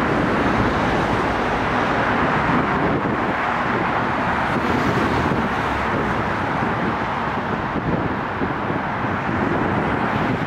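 Steady roar of city road traffic, an even rumble with no single vehicle standing out.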